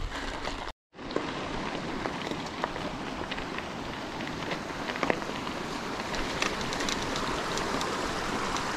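Steady rushing of a mountain stream, with scattered light clicks over it. The sound cuts out completely for a moment about a second in.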